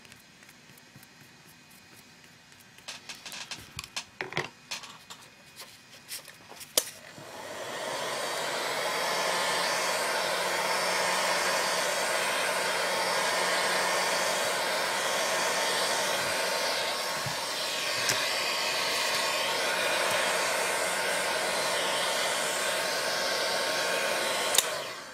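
A few light handling clicks, then an electric hot-air blower is switched on about seven seconds in. It runs steadily for about seventeen seconds, drying a freshly brushed coat of decoupage sealer, and cuts off abruptly near the end.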